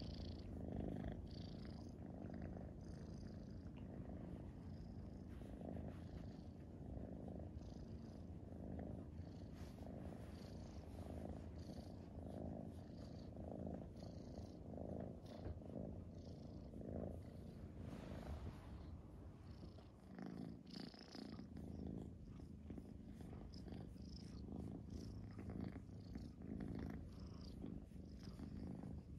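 Domestic cat purring steadily while being stroked, the rumble swelling and easing about once a second with its breathing.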